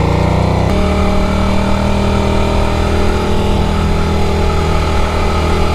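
Motorcycle engine running under way, heard from on board the bike, its pitch slowly climbing as it pulls. Under a second in, the sound cuts abruptly to a steady cruising note.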